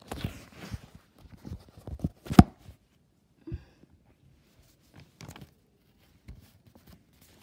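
Handling noises close to the microphone: a scatter of rustles, taps and knocks, the loudest a sharp knock about two and a half seconds in, then softer, sparser rustles.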